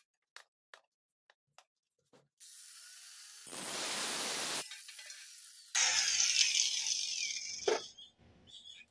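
Electric angle grinder running up and cutting through a long LED light fixture. It cuts in two loud passes, one around three to four and a half seconds in and a louder one from about six seconds, then stops just before the end.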